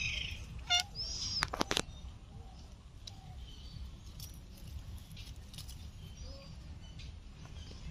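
Garden ambience: a bird chirps briefly about a second in. A few sharp snaps follow about one and a half seconds in as chillies are picked off the plant. After that there is a steady low rumble with faint, scattered distant bird calls.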